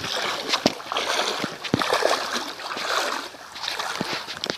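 A rushing noise that swells and fades, crossed by sharp knocks and rubbing from a phone microphone being handled against clothing.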